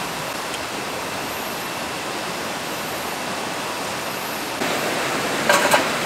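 Steady rush of a mountain stream, with a few light clicks near the end.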